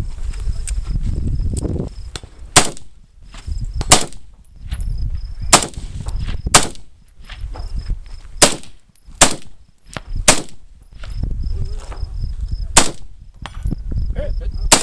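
Single aimed gunshots, about eight of them, fired one at a time with gaps of one to two and a half seconds.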